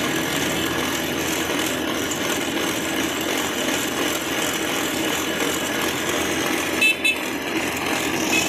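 Cotton candy machine running, its spinning head and motor giving a steady hum over street noise while it spins sugar into floss. A brief high horn toot about seven seconds in.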